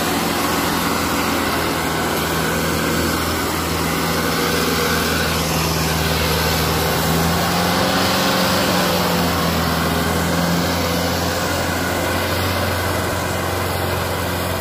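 Sonalika DI 750 tractor's diesel engine running hard and steady under heavy load while hauling a loaded sand dumper trailer up a bank. Its pitch rises slightly about halfway through, then settles.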